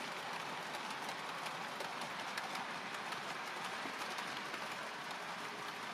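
Model train of about forty wagons, hauled by a Piko Hobby locomotive, rolling along the layout's track. It makes a steady rushing clatter of small wheels on rail, dotted with many faint clicks.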